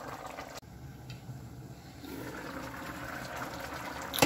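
Chicken-and-dumpling broth with mixed vegetables boiling in a pot on the stovetop, a steady bubbling. It cuts out for an instant about half a second in and grows fuller from about two seconds in.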